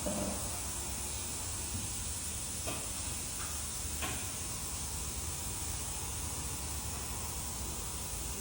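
Steady hiss of workshop background noise, with a couple of faint clicks.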